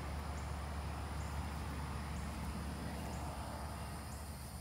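Outdoor yard ambience: a steady low rumble with a faint, high insect chirp repeating about once a second.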